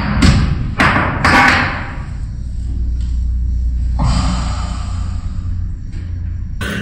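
Objects falling: three or four sharp thuds and knocks in the first second and a half, followed by a low steady hum.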